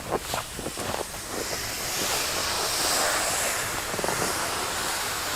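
Strong wind rushing and buffeting the microphone, swelling and easing, with fine snow blowing. A few crunching footsteps in snow in the first second.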